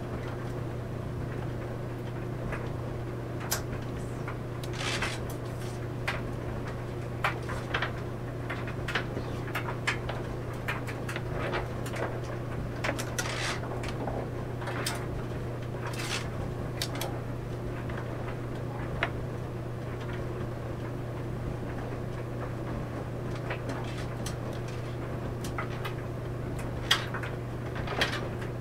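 Clothes dryer running: a steady low hum with irregular clicks and knocks from laundry tumbling in the drum, a couple of louder thumps near the end.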